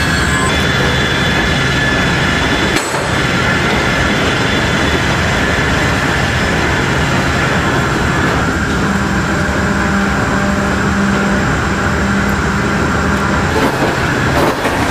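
Steady loud machinery noise from a cargo aircraft and its ground equipment during unloading, with a constant high whine over a low hum. The hum gets stronger about two-thirds of the way through.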